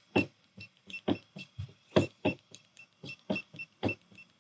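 ONNAIS RV smart lock keypad being tapped quickly, each button press giving a soft tap and a short high beep, about fourteen presses at roughly three a second as a long string of random digits is entered.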